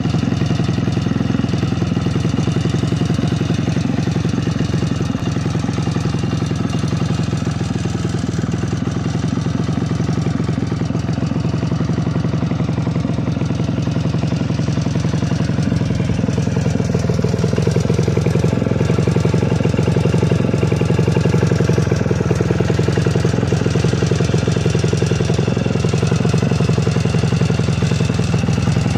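1973 CZ 125 Sport's single-cylinder two-stroke engine idling steadily. A little past halfway it gets slightly louder.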